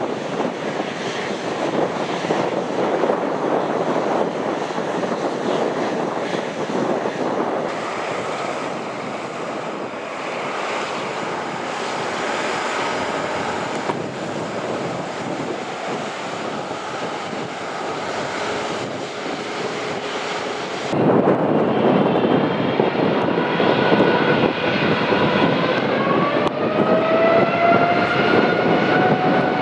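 Jet airliner engines running with a steady, loud roar. About 21 seconds in, the sound switches abruptly to a louder jet whose engines climb in a rising whine, typical of spooling up to takeoff thrust.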